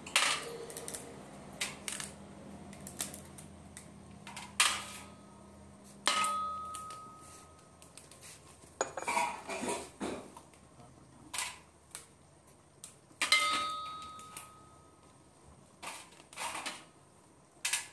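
Crabs being cleaned by hand over a steel tray: scattered cracks and clicks of hard shell and claws being broken apart, with clinks of shell and hands on the metal. Twice, about six and thirteen seconds in, a clink rings on briefly.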